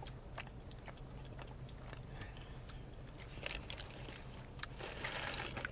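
Close-miked eating: a bite into a bacon burger and chewing, with soft mouth clicks throughout, a crunchy bite about three and a half seconds in and a longer one near the end.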